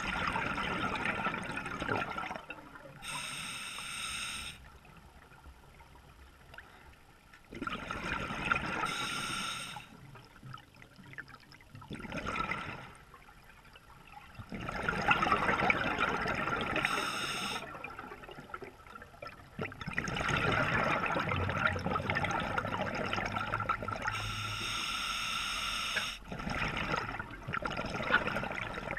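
Scuba diver breathing through an open-circuit regulator underwater: about five long rushes of exhaled bubbles, with short high-pitched inhalation hisses from the regulator between them.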